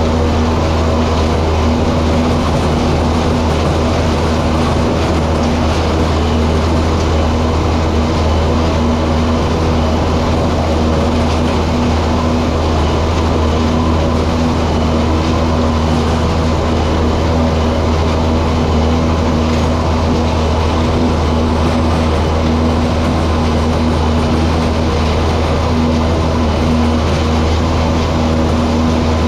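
Tractor and pull-type forage harvester running steadily under load while chopping corn for silage: a constant low engine and machine hum with steady tones above it.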